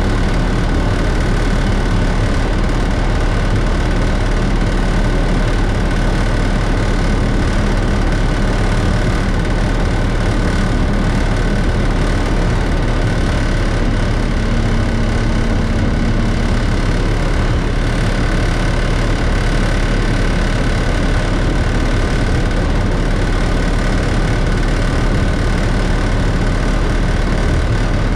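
Class 33 diesel locomotive's Sulzer eight-cylinder engine running steadily, heard from inside the cab, with no change in pitch or load.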